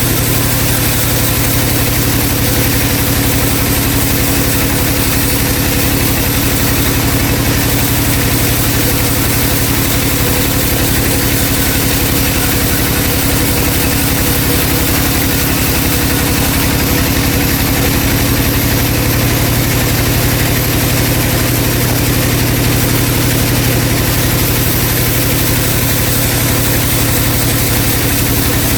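Vertical band saw running with a steady, even mechanical hum.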